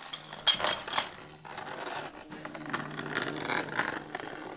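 Plastic clicks and clatter from a toy hamster playset being worked by hand: two sharp clacks about half a second and a second in, then a light ongoing rattle.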